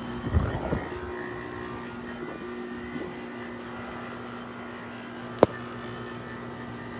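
Haier 5,200 BTU window air conditioner running with its rotary compressor on, a steady, a little loud hum, with a brief knock near the start and one sharp click about five seconds in.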